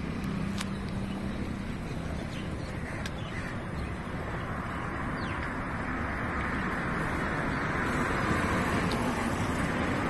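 Steady road traffic noise with a few faint, short bird calls over it.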